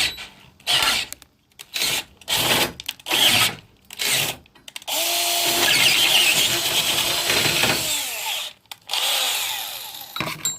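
Cordless drill running in several short bursts, then in a steadier run of about three seconds, with a held motor whine, near the middle.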